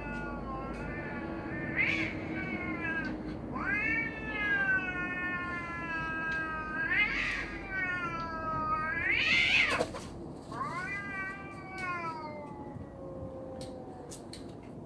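Cats caterwauling in a standoff before a fight: long, drawn-out yowls that waver up and down in pitch, one after another, the loudest about nine to ten seconds in.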